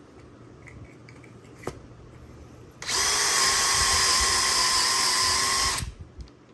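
Electric drill motor starting about three seconds in and running at a steady speed for about three seconds, then stopping. A single click comes shortly before it.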